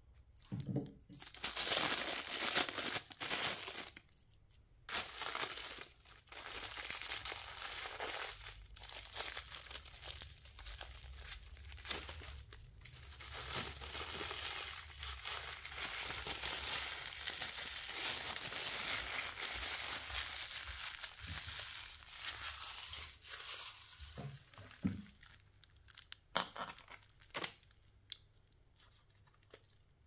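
Clear plastic wrap crinkling and tearing as it is pulled off pillar candles, in long noisy stretches with short breaks. Near the end it gives way to a few scattered rustles and clicks.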